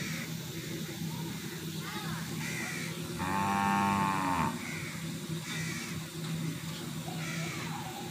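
A cow mooing once, a single call of about a second and a half starting about three seconds in, with crows cawing again and again around it.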